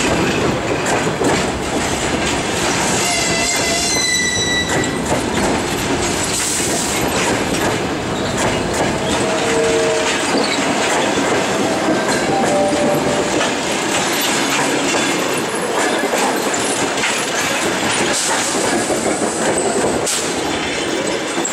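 Passenger coaches of a departing express train rolling past, their wheels clattering steadily over the rail joints. A few brief thin squeals ride over the rumble, about four seconds in and again around ten seconds in.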